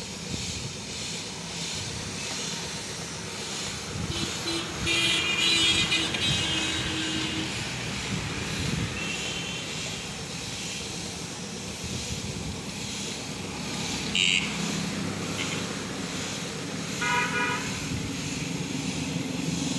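Compressed-air paint spray gun hissing steadily as it sprays, over street traffic. Vehicle horns toot several times: around five seconds in, again near fourteen seconds and near seventeen seconds.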